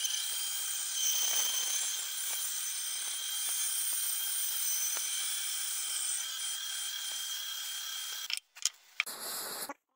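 Benchtop bandsaw running and cutting a curve through a thick block of wood: a steady, high-pitched hiss of the blade in the wood. Near the end the sound breaks off a few times, then stops abruptly.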